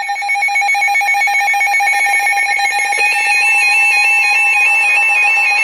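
Emergency Alert System attention tone for a severe thunderstorm warning: a loud, continuous electronic alarm tone with a rapidly warbling higher tone over it, which jumps up in pitch about three seconds in.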